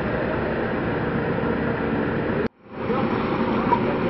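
Steady rumbling outdoor noise with a faint low hum. It cuts out abruptly about two and a half seconds in and fades back up a moment later.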